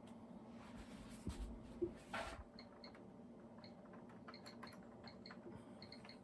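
Faint keystrokes on a DEC VT320 terminal keyboard, a scatter of light clicks as the date and time are typed in, over a low steady hum.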